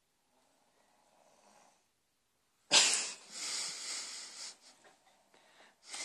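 A boy snoring: a faint snore about a second in, then a sudden, loud, noisy breath about halfway through that trails off over a couple of seconds, with shorter breaths after it.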